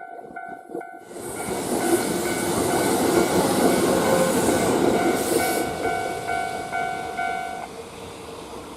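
Kintetsu train passing over a level crossing, its wheels and running noise building to a loud rush about a second in and fading away over the last few seconds. The crossing bell rings on in rapid, even dings under the train and stops shortly before the end.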